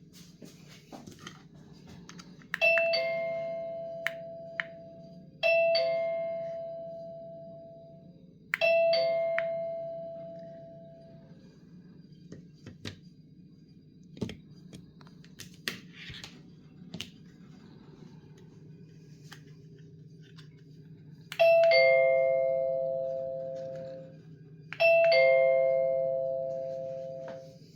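Lexman D02 wireless doorbell chime ringing a two-note ding-dong, higher note then lower, five times: three in a row about three seconds apart, then two more after a pause. Each ring fades out over a couple of seconds. Small clicks of handling fall between them.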